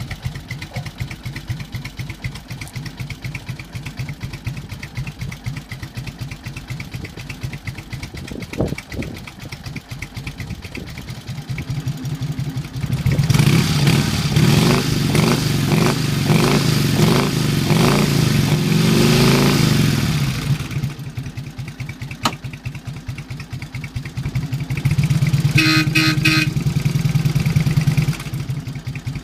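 1946 Indian Chief's side-valve V-twin idling with a steady beat, revved hard for about seven seconds midway, then run up again for a few seconds near the end.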